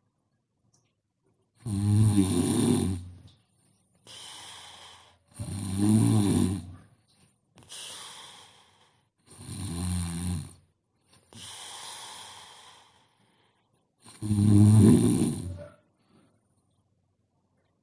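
A sleeping person snoring: four loud snores about four seconds apart, with a softer breathy sound between each pair.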